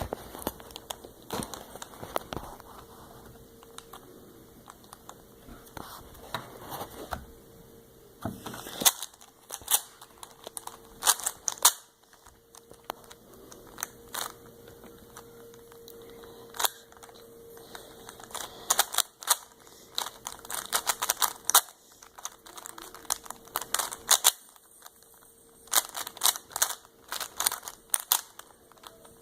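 D-FantiX YJ Guanlong 3x3 plastic speed cube being turned quickly by hand during a solve: irregular runs of rapid clicks as the layers snap round, with short pauses between runs.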